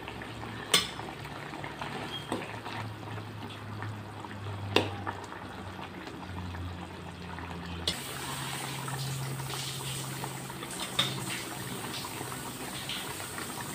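Thick asam pedas curry sauce bubbling at a simmer over medium heat in a wok, with a steady low hum and a few sharp clicks.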